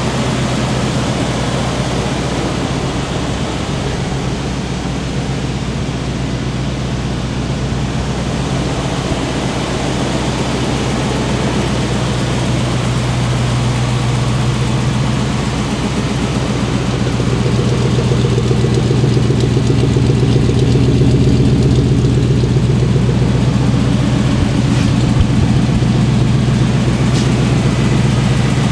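1987 Chevrolet K10 pickup's V8 engine idling steadily, getting a little louder about two-thirds of the way in.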